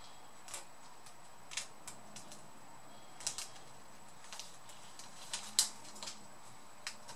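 Light, irregular clicks and taps of plastic laptop parts being handled, with about ten in all and the loudest a little past the middle, as a ribbon cable is fitted in the opened keyboard bay of a Dell Vostro 3550.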